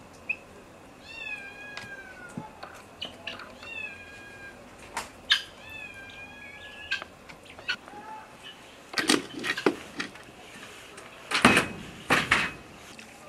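A cat meowing: two drawn-out calls that fall in pitch, with a few short squeaks around them. Near the end come two bursts of sharp clattering knocks, louder than the calls.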